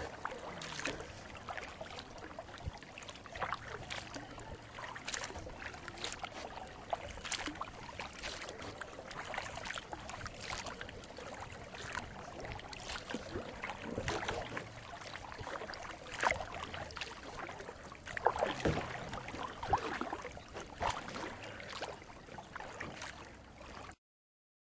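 Kayak paddle strokes dipping and splashing in lake water, with irregular drips and splashes about once a second. The sound stops abruptly near the end.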